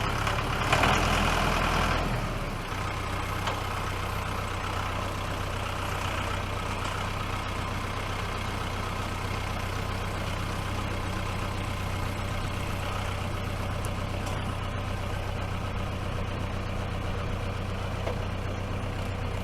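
Tractor engine running under load for about the first two seconds, then settling to a steady idle.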